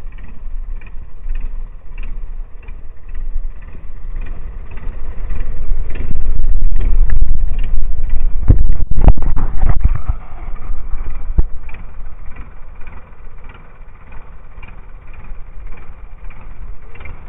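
A fishing boat's engine running steadily, a low rumble with a regular tick about three times a second. Midway the rumble swells loud and a few heavy knocks sound, with one more a couple of seconds later.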